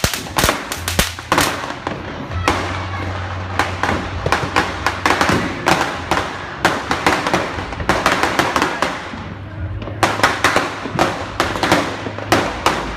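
Street firecrackers going off: dozens of sharp bangs in rapid, irregular clusters, some overlapping into crackling strings. A low steady hum runs underneath most of it.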